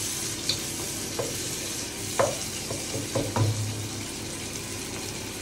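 Onions, tomatoes and green chillies sizzling in oil in a nonstick saucepan, the onion-tomato base of a curry frying, while a spatula stirs them, scraping against the pan in short strokes about six times.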